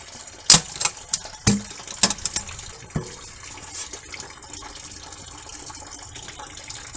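A handful of sharp clicks and clinks over the first three seconds, some with a brief ring, then a faint steady hiss.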